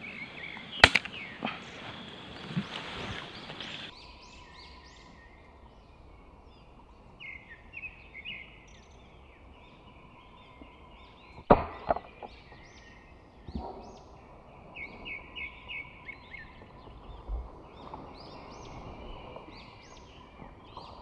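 Two sharp cracks from a pump air rifle, one about a second in and one near the middle followed by a couple of quick knocks. Small birds chirp in runs of short, high repeated notes.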